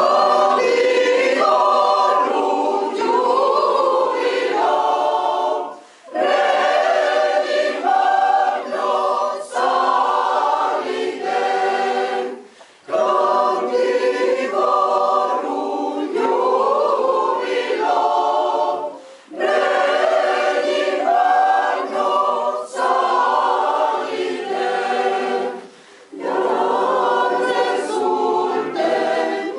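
A choir singing a cappella under a conductor, in phrases of about six seconds with short breaks for breath between them.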